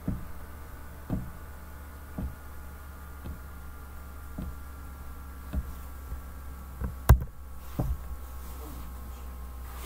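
Soft, low knocks about once a second over a steady low hum, with one sharp click about seven seconds in.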